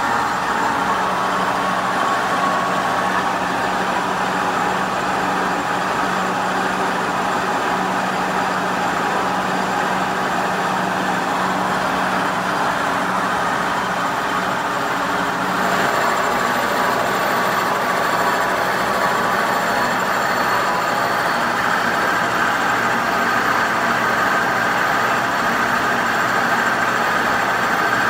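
Kearney & Trecker horizontal milling machine running a roughing slab mill on its arbor, steadily cutting the top face of a power hammer cross head: the machine's drive hums while the cutter chews through the metal. Just past halfway the sound shifts and grows a little louder.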